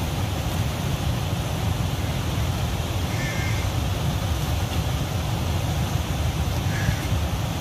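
Muddy floodwater of a swollen river rushing past a barrage: a steady rushing noise with a heavy low rumble. A crow caws faintly twice, about three seconds in and near the end.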